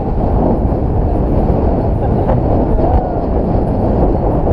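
A moving vehicle rumbling along a rural road, heard from on its roof with wind buffeting the microphone. The sound is a loud, steady, low rumble.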